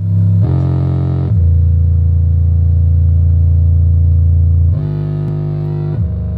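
Home-theatre subwoofer playing a bass-test track at full volume: deep, sustained bass notes, each held from under a second to a few seconds before stepping to a new pitch.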